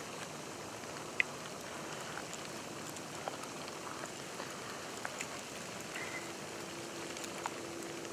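Falling snow pattering on dry leaves and branches: a steady soft hiss with scattered light ticks and one sharper click about a second in. A faint steady hum joins about six seconds in.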